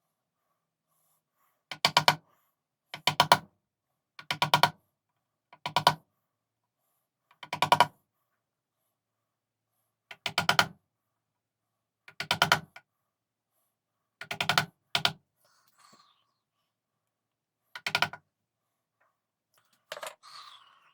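Short rasping strokes of a hand tool cutting thin horn plate, each a quick run of fine clicks. There are about ten strokes, one every one to three seconds, with quiet in between.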